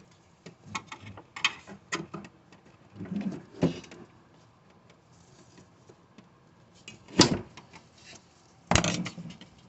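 Scattered clicks and knocks of a hook tool pulling the plastic side-panel clips of a Glowforge laser cutter and working the panel loose, with two louder clatters in the last few seconds.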